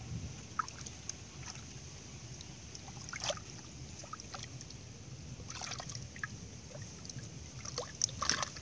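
Hands groping and sloshing in a small pit of muddy water, feeling for fish caught in a dug-hole trap: scattered short splashes and sloshes, the most distinct about three seconds in and a cluster near the end, over a low steady rumble.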